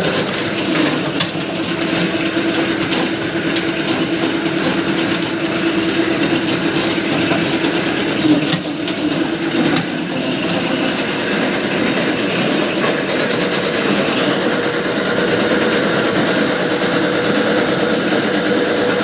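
Areca nut splitting machine running, a rapid mechanical rattle with scattered sharp clicks over a steady motor hum. The hum shifts higher about halfway through.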